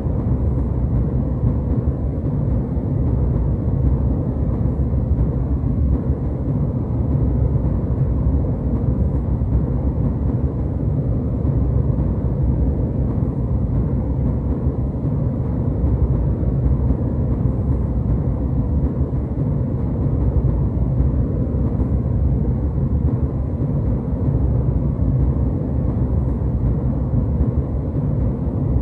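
Jet airliner cabin noise: a steady, deep rumble of engines and airflow heard from inside the cabin, unchanging throughout.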